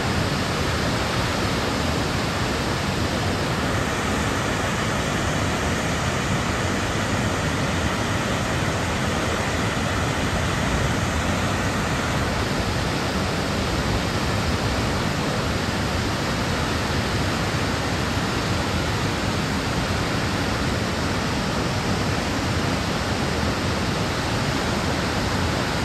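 Cumberland Falls, a wide waterfall, pouring steadily into its plunge pool: a constant, even rush of falling water.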